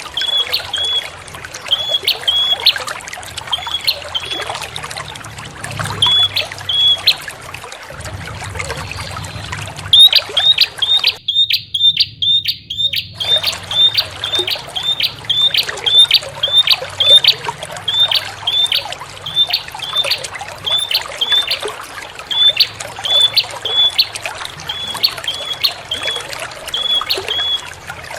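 Prinia (prenjak) calling: short, high chirps repeated in quick runs, over a steady trickle of running water. About eleven seconds in, the water sound cuts out for a couple of seconds while the chirps go on fast, then it returns.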